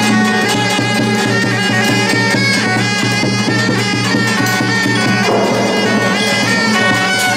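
Loud, reedy Chinese suona music over a steady low drone, with a fast, even beat of drums and cymbals.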